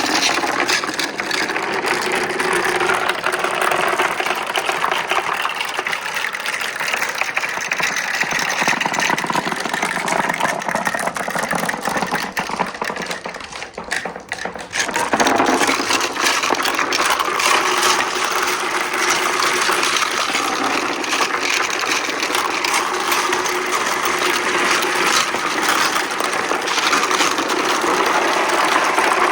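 Marbles rolling and clattering along a wooden marble run, a dense continuous rattle of many small clicks. It thins out briefly about halfway through and then picks up again.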